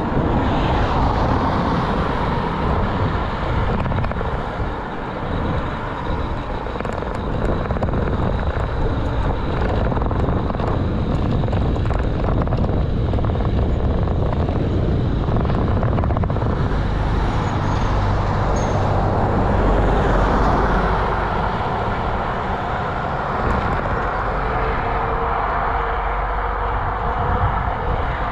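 Wind rushing over a handlebar-mounted GoPro action camera while cycling, with steady tyre and road rumble and short rattles from bumps. A heavier rumble builds and peaks about twenty seconds in.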